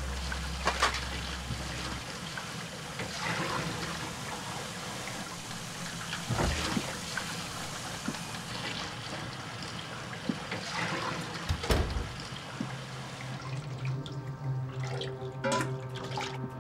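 Kitchen tap running into a sink while a plate and dishes are rinsed, with several sharp clinks of crockery. Near the end the water sound thins and a low steady hum comes in.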